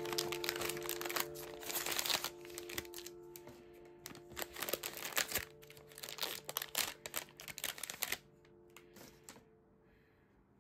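Plastic ice cream bar wrapper crinkling and tearing as it is opened by hand: a run of sharp crackles that stops about eight seconds in, over background music.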